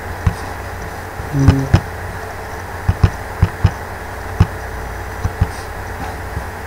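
Computer mouse clicking: about ten sharp, irregularly spaced clicks, several in quick pairs, as ports are selected and links dragged in the software, over a steady low hum.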